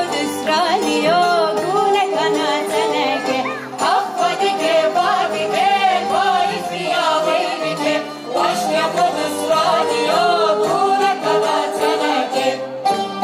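A live Kurdish folk orchestra of violins and bağlama lutes playing a melody with wavering, ornamented lines.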